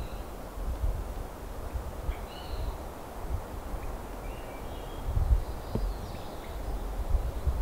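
Outdoor forest ambience: a few faint, short songbird chirps now and then over a steady low rumble of wind on the microphone.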